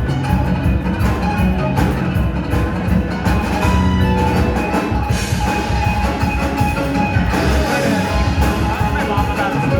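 Music playing continuously, with held notes over a steady, busy accompaniment.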